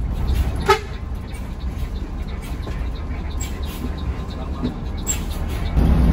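Bus horn giving one short toot about a second in, over the steady low rumble of the bus's engine heard from inside the cab. The engine rumble gets louder near the end.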